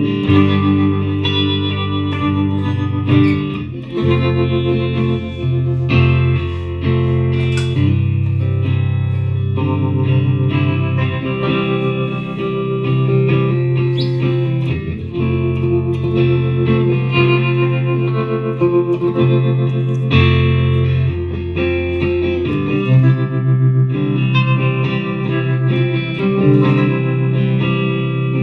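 Harley Benton TE-62CC SFG Telecaster electric guitar played through effects, with held and changing notes over a steady low end.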